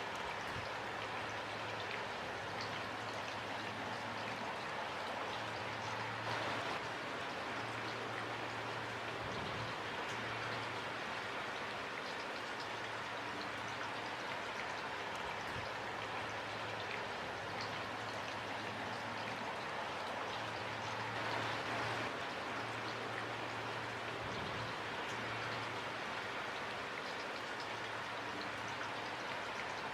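Steady rain falling, an even patter with individual drops ticking through it. A faint low hum comes and goes underneath.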